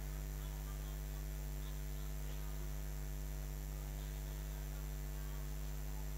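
Steady low electrical mains hum with an even hiss behind it, unchanging throughout.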